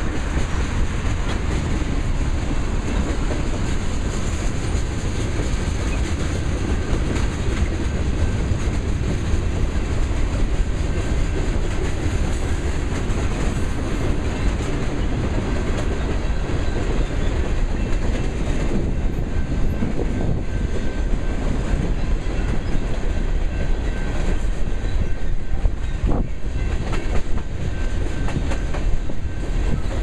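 Freight train cars, tank cars and covered hoppers, rolling past: a steady rumble of steel wheels on rail with scattered clicks as the wheels cross the rail joints.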